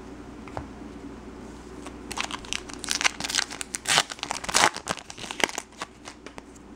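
Wrapper of a 2013 Topps Mini baseball-card pack being torn open and crinkled by hand. A run of sharp crackles starts about two seconds in, is loudest a little past the middle and dies down before the end.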